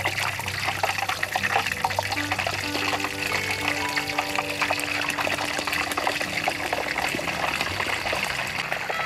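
Hot oil sizzling and crackling as a whole stingray fries in a large wok, with a dense, steady crackle of bubbles. Background music with held notes plays underneath.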